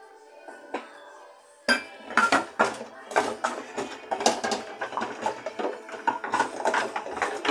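Dishes and cutlery clattering and clinking as they are handled at the kitchen counter or sink, a rapid, uneven run of knocks that starts suddenly a couple of seconds in.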